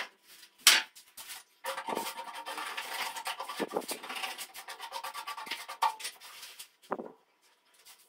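Uneven scraping and rubbing against a hard surface by hand, with a sharp knock just under a second in and another near the end.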